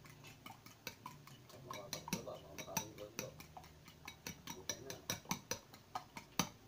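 Fork beating raw eggs in a glass bowl, its tines clicking against the glass in a quick, uneven run of about three to five clicks a second.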